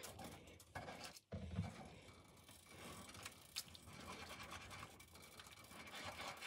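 Faint stirring: a plastic spatula scraping and swishing through broth in a nonstick pan.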